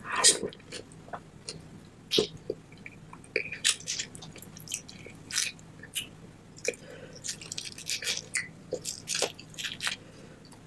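Close-miked wet chewing and lip smacking of lobster in butter sauce: irregular sharp smacks and squelches, several a second, the loudest right at the start.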